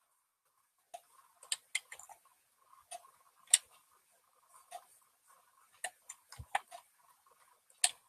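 Stylus tapping and clicking on a graphics tablet while painting: about a dozen irregular sharp clicks, the loudest about three and a half seconds in, with one duller knock a little after six seconds.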